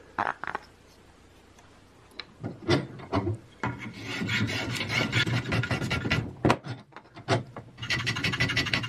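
Hand block plane shaving the edge of a wooden strip held in a bench vise: after a quiet couple of seconds, a few short strokes, then a run of continuous rasping strokes, two sharp knocks, and more planing near the end.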